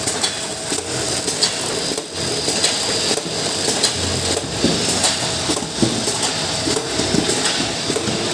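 Automatic packing machine for shisha charcoal briquettes running, with a steady mechanical noise and a dense, irregular clatter of clicks and knocks.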